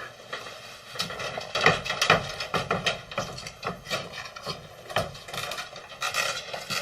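Irregular light clicks and knocks with some rubbing, a few each second.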